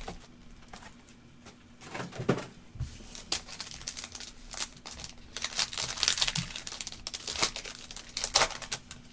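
A trading card pack's wrapper being torn open and crinkled by hand, in irregular crackles. It is fairly quiet for the first two seconds, then grows busier through the rest.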